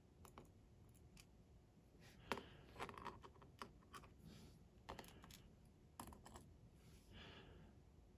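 Faint, scattered small clicks and light scrapes of tiny metal lock pins and springs being picked out and set down on a desk, a few in quick clusters.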